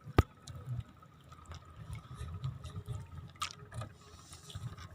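Water sloshing and dripping, with one sharp click just after the start and a few fainter knocks later.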